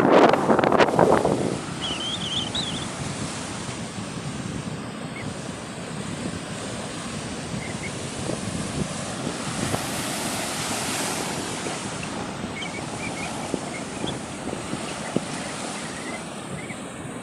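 Sea surf: a wave breaks loudly at the start and fades over the first second or so, then a steady wash of surf that swells again around ten seconds in. Wind buffets the microphone.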